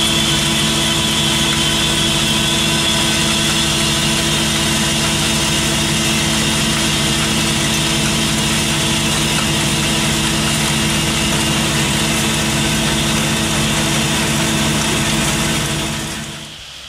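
Grout mixing plant under a cement silo running steadily: the silo screw conveyor and mixer give a loud, even motor hum with a hissing rush as cement powder is fed in. The sound fades out near the end.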